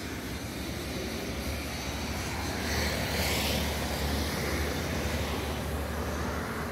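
Road traffic noise, a steady low rumble with one vehicle swelling past about three seconds in.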